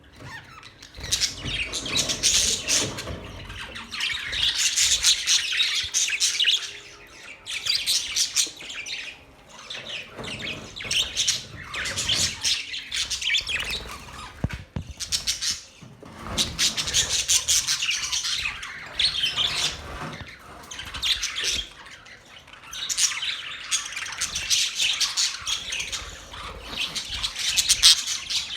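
Budgerigars chirping and chattering, with some harsher squawks, in busy bouts broken by short pauses.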